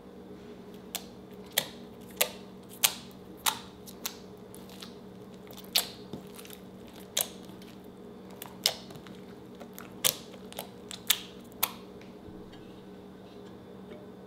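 Slime being stretched and folded by hand, letting off a series of sharp wet pops and clicks about every half second, over a steady low hum; the pops stop a couple of seconds before the end.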